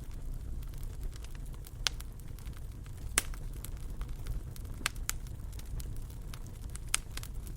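Fire burning in a fireplace: a steady low rumble with sharp crackles and pops scattered through, the loudest pop about three seconds in.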